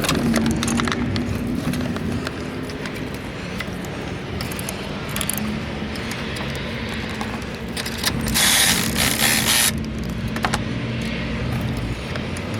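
2014 Acura TSX engine idling steadily, just started on a jump, with scattered metallic clicks and rattles of tools or clamps. A loud rushing hiss cuts in about eight seconds in and lasts just over a second.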